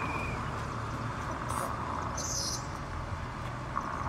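Steady outdoor background hum at a railroad crossing, with a short high chirp about two seconds in.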